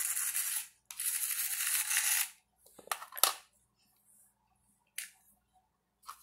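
Tiny electric motor of a 1:64-scale toy RC car whirring in two bursts of about a second each, its wheels spinning free while the car lies flipped on its side. Then a few light clicks and taps of the plastic car on the tile floor as it is set back on its wheels.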